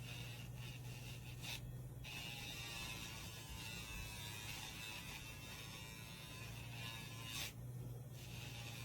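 Casfuy two-speed electric dog nail grinder running steadily with a quiet motor hum and whine while filing a dog's nails; its high part changes briefly about two seconds in and again near the end.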